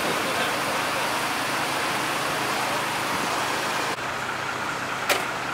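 Steady motorway traffic noise with a low engine hum beneath it, a little duller after about four seconds, and one sharp click just after five seconds.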